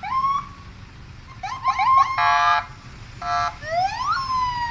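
Police car electronic siren: quick rising whoops and yelps, two short horn-like blasts about two and three seconds in, then a long wail that falls in pitch near the end.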